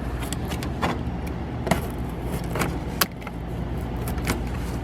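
Scattered light clicks and knocks of tools and parts being handled, about six in a few seconds, over a steady low hum.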